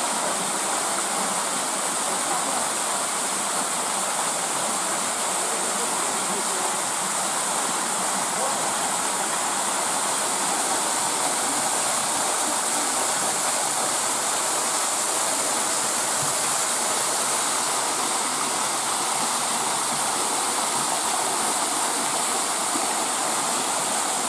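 Waterfall: a steady, loud rush of falling water, even throughout.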